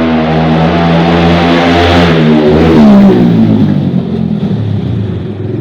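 Yamaha R15 V4M's single-cylinder engine running loud through an Akrapovic exhaust with its dB killer removed, echoing in a tunnel. The note is loudest about three seconds in, then the pitch falls as the revs drop and it settles to a lower, quieter note.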